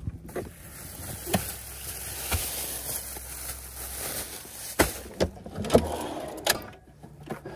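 Handling noises of camping gear: a plastic grocery bag rustling, with several sharp knocks and clicks. Near the end a storage drawer in an SUV's cargo area is pulled out.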